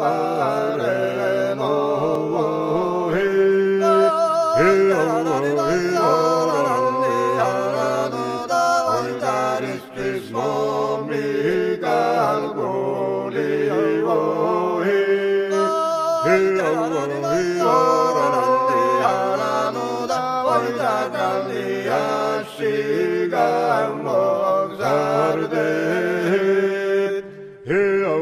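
Gurian folk song from western Georgia: several voices singing together in polyphony, upper parts moving over held lower notes.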